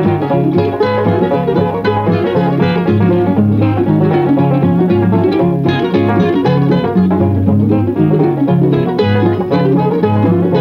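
Instrumental bluegrass theme music: fast-picked banjo and guitar over a repeating bass line, playing without a break.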